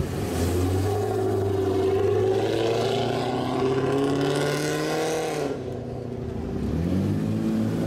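A lowered Lexus SC430's V8 pulling away at low speed, its engine note rising steadily for about five seconds and then falling away as it goes. Near the end a second car's engine starts to rise as it pulls off.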